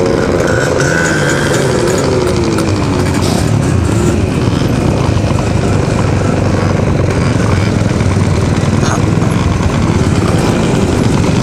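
A crowd of small scooter and pit-bike engines running at close range, idling and revving, their pitch rising and falling now and then.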